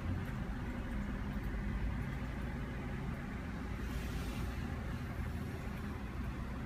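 Steady low background rumble with no speech or music, and a brief faint hiss about four seconds in.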